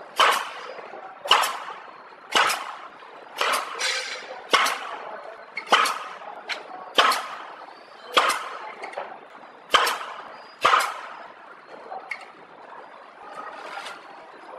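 Horizontal pillow-type flow-wrapping machine running while it wraps steamed buns: a sharp snap about once a second, each followed by a short fading hiss. The snaps grow weaker after about eleven seconds.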